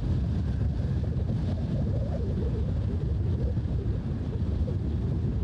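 Low, steady rumble of a FedEx cargo jet's engines climbing out after takeoff, mixed with wind buffeting the microphone.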